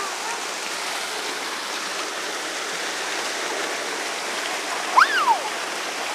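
Steady rush of running water, like a fountain or water feature. About five seconds in there is one short, high squeal that rises and then falls.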